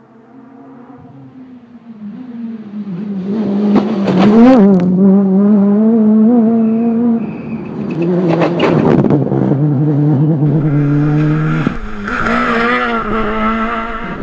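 Subaru Impreza rally car's flat-four engine approaching at full throttle, growing from faint to loud, its revs rising and falling through gear changes with brief crackles. After a sudden break near the end, another loud run of rally engine follows.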